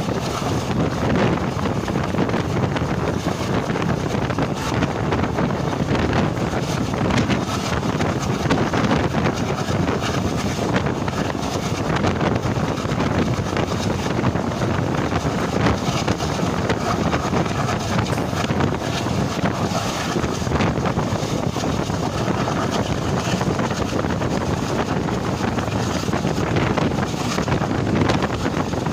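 Passenger train running at speed, heard from an open coach window: a steady rush of wind on the microphone over the rumble of the wheels on the track, with occasional faint clicks.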